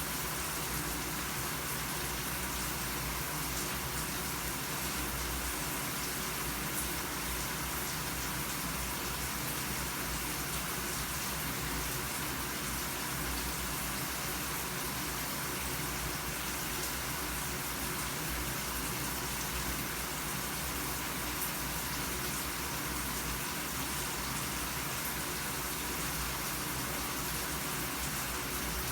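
Shower running: a steady, unchanging hiss of water spray falling.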